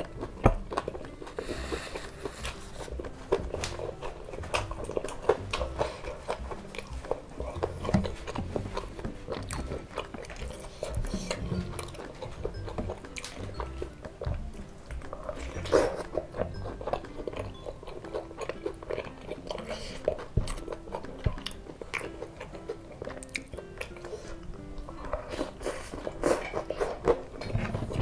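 Close-miked eating sounds: a person biting and chewing battered fried tempeh (tempe mendoan), with many short clicks of bites and chews throughout.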